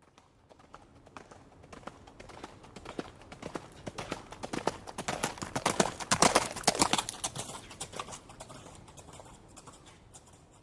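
A horse's hooves clip-clopping as it walks past: the hoofbeats grow louder to their loudest about six seconds in, then fade away.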